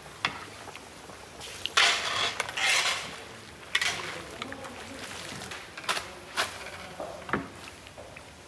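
A wire-mesh skimmer and a metal ladle knocking and clinking against steel pots and a wooden serving platter as boiled sheets of noodle dough are laid out and broth is ladled over them: a few sharp separate knocks, with a couple of short louder rushes of noise about two seconds in.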